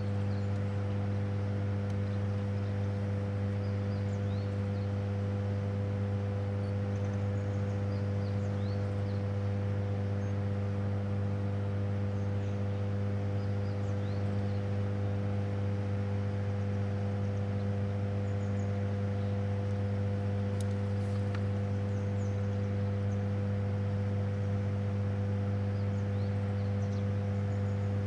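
Hydroelectric power station's deep, steady electrical hum with a stack of overtones, unchanging throughout.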